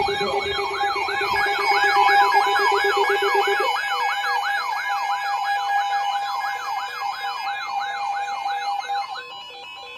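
Weather alert radios sounding together: one gives a loud warbling siren that sweeps up and down about four times a second, over steady alert tones. This is its siren alert mode, which it fell back to after being unplugged. A lower pulsing tone stops about a third of the way in, and the siren stops shortly before the end.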